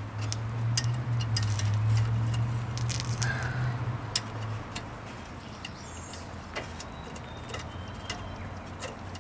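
Light metallic clinks and ticks of a brake caliper and wrench being handled at a rear disc brake rotor, over a steady low hum that fades about four and a half seconds in.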